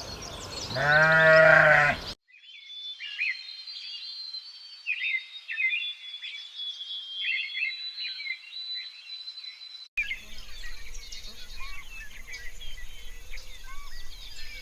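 A loud bleat from a sheep or goat lasting about two seconds, then it cuts off abruptly to quieter high chirping calls. About ten seconds in there is another abrupt cut to denser high chirping over a faint steady tone.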